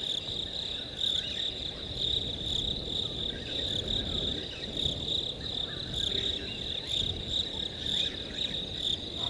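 A steady high-pitched chorus of night insects, such as crickets, trilling with a slight pulse throughout, over a low background rumble.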